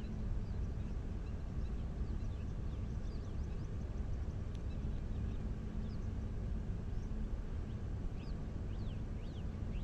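Open-air ambience: many short, quickly falling chirps of small birds scattered throughout, over a low steady rumble with a faint hum.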